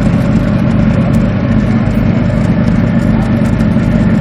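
Motorboat engine running steadily at a constant pitch, heard on board.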